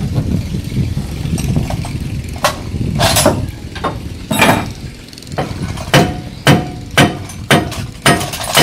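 Metal hand tools clinking and knocking on a boat's inboard engine as it is unbolted from its mounts for removal. The knocks are scattered at first, then come about two a second in the second half, over a low steady rumble.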